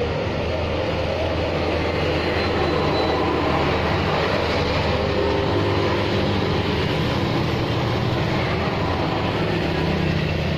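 Road traffic: motor scooters and a lorry passing, their engines making a steady low hum over a continuous roar of traffic.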